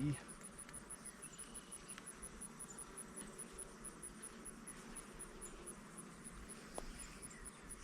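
Honeybees humming faintly around an open hive, under a high insect chirp that pulses about five times a second. A small click about seven seconds in.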